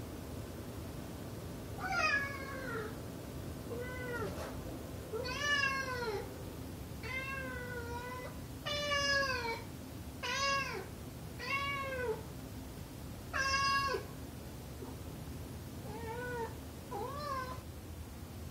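Domestic cat meowing over and over, about ten drawn-out meows with gaps of a second or so, several falling in pitch at the end; these are the calls it uses to wake its owner in the morning.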